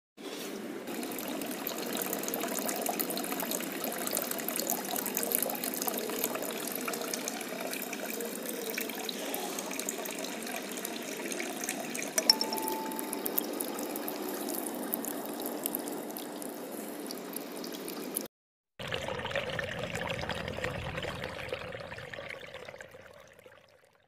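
Water trickling and splashing down a small aquarium paludarium waterfall, steady and unbroken. There is a single click about twelve seconds in. The sound drops out briefly a little after eighteen seconds, comes back, and fades away near the end.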